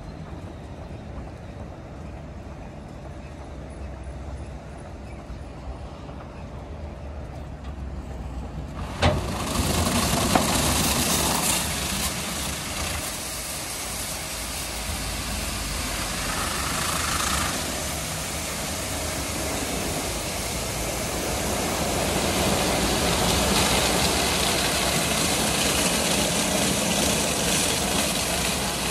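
WashTec EasyWash rollover car wash gantry: a steady low machine hum for the first nine seconds, then a sudden start of rushing water spray and the rotating foam side brushes, a dense wash noise that carries on and grows louder later as the gantry travels along the bay.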